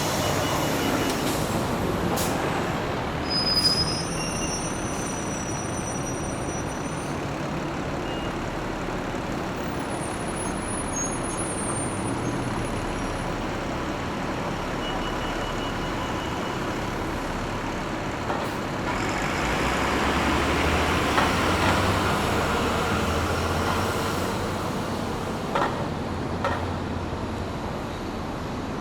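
Bus station ambience: bus engines running and moving through, with a brief high brake squeal a few seconds in and a louder engine swell about two-thirds of the way through. Two short knocks near the end.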